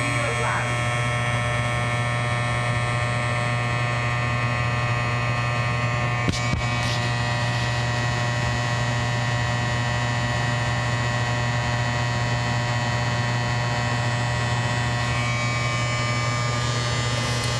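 Steady electrical buzz from a contactor in an electric furnace, one even hum with many overtones, with a brief click about six seconds in. The contactor is buzzing badly enough to need replacing.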